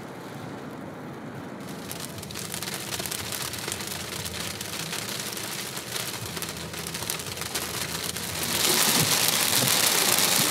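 Rain and sleet falling, a dense patter of many small impacts. It starts about two seconds in and grows much louder and brighter about eight and a half seconds in.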